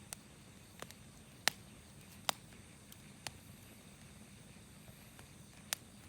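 Wood campfire crackling: sharp, irregular pops over a soft steady hiss.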